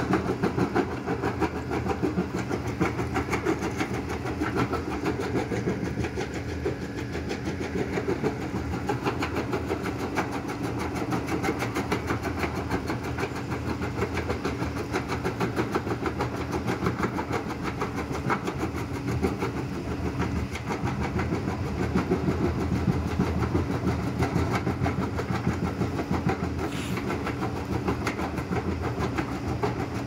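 Kobelco excavator's diesel engine running under load while its hydraulic crusher bucket crushes stone, a steady fast clatter of rock being broken in the jaw.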